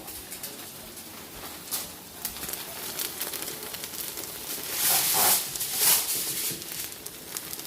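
Korean pancakes frying in a hot oiled pan, a steady crackling sizzle with two louder hissing surges about five and six seconds in.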